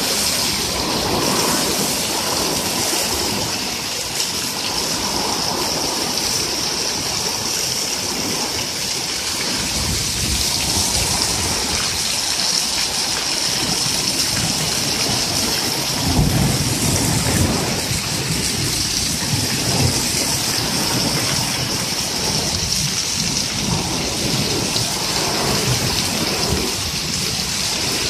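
Heavy downpour: a steady hiss of rain pelting the lawn and patio, with runoff splashing off the edge of the patio roof onto the concrete. About halfway through, a low rumble of thunder rises and fades over several seconds.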